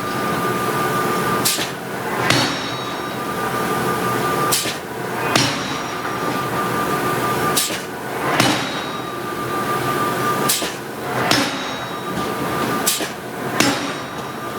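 Hydraulic forging hammer striking steel in pairs of blows less than a second apart, a pair every two to three seconds, each blow followed by a metallic ring, over a steady machine hum.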